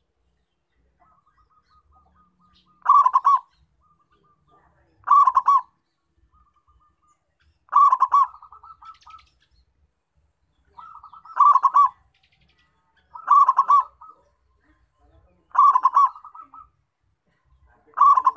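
Zebra dove (perkutut) singing its cooing song: about seven short phrases, one every two to three seconds, each a quick run of staccato notes, with softer notes between them.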